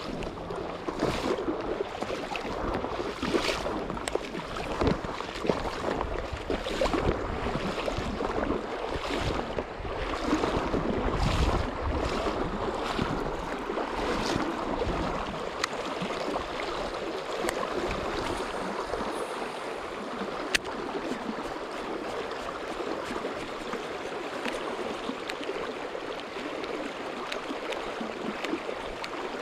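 Fast, shallow river current rushing over a stony bed, a steady rush of water. Short sharp splashes or knocks come every second or two through the first half, along with a low rumble, then thin out.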